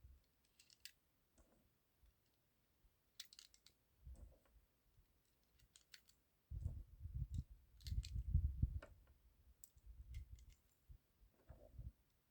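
Small metallic clicks at irregular intervals, typical of cartridges being pressed one by one into a pistol magazine, with low rumbling handling noise in the second half.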